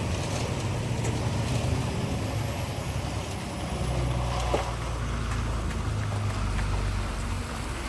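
Diesel engine of a concrete mixer truck running steadily, with a single sharp knock about halfway through.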